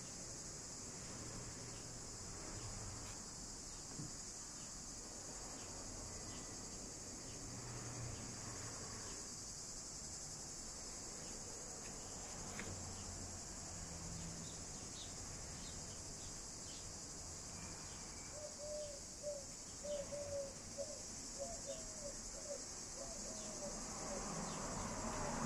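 Steady, high-pitched chorus of insects, such as cicadas or crickets, running unbroken. A quick run of short low chirps comes in about three-quarters of the way through.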